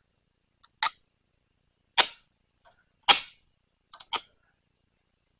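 A few sharp clicks and taps, about five, spaced irregularly with silence between: small hard objects being handled and knocked together.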